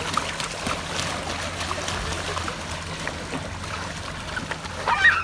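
Water splashing and sloshing as bare feet slap and stamp on a floating foam water mat, over a steady low hum. A brief high-pitched shout about five seconds in.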